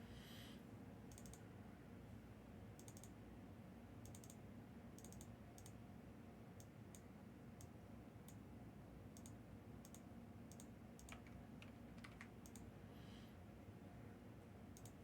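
Near-silent room tone with faint, irregular clicks of typing on a computer keyboard.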